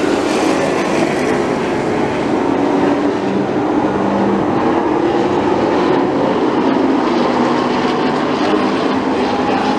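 A pack of late model stock cars running at racing speed around a short oval, their V8 engines blending into one loud, steady sound.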